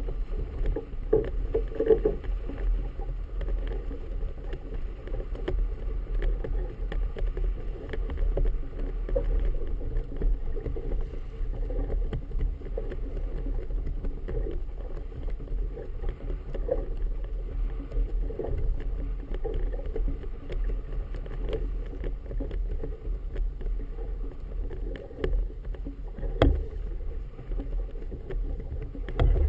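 Wind and choppy water slapping against the hull of a stationary boat, heard muffled: a steady low rumble with irregular small knocks, one sharper knock near the end.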